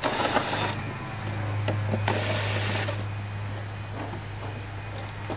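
Cordless drill/driver running in two short bursts, its motor whining, one at the start and one about two seconds in, working the hose clamp on an engine's air intake duct.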